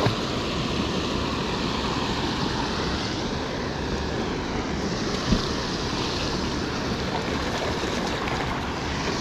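Steady rushing of water spilling over a low concrete dam, with a single short knock about five seconds in.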